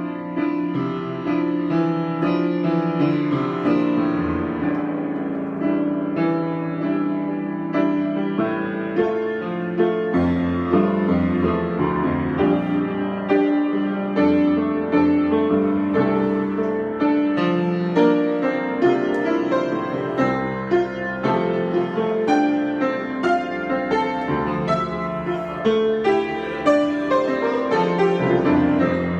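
Solo piano improvisation: a continuous flow of melodic notes over sustained chords at a steady moderate level.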